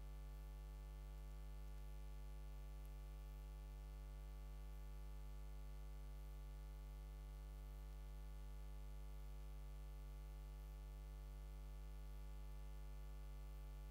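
Steady electrical mains hum: a low, unchanging hum with a ladder of higher overtones above it, over faint hiss.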